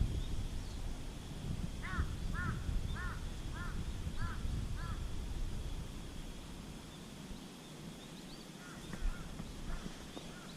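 A bird calling a run of six short, arching notes about half a second apart, starting about two seconds in, then a few fainter notes near the end. Under it is a low rumble and a faint steady high tone.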